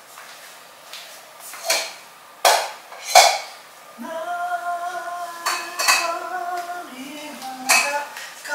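Three sharp knocks in the first few seconds, then a person singing long held notes from about four seconds in.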